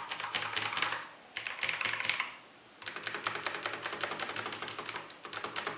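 Typing on a mechanical keyboard with clicky Longhua Blue switches and thin ABS keycaps: rapid bursts of sharp keystroke clicks, broken by two short pauses.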